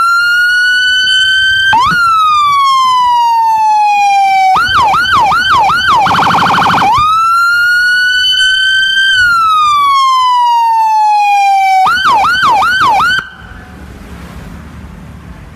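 Electronic emergency-vehicle siren cycling through its tones: a slow wail rising and falling, a few fast yelp sweeps, about a second of harsh steady horn tone, another slow wail, then fast yelp again. It cuts off about 13 seconds in.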